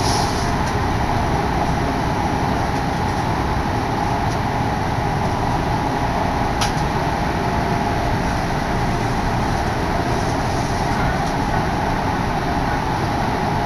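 Odakyu Odawara Line commuter train running at speed, heard from inside the carriage: a steady, even running noise with a constant droning band, and one sharp click about six and a half seconds in.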